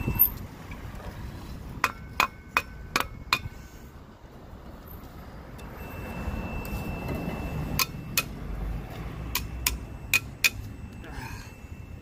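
A multimeter's continuity tester holding a steady high tone, the sign that the tamper switch contacts are closed; the tone drops out near the start and comes back about halfway through. Over it, sharp metal clicks and taps from hands working the switch and its bracket: five quick ones about two seconds in, then a few more in pairs later on.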